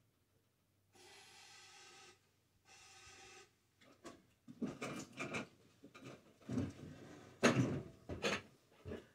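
Hands-on work on an old Witte diesel engine: two short steady whirring sounds, then a run of irregular metallic knocks and clunks from tools and parts being handled. The loudest knock comes about two-thirds of the way through.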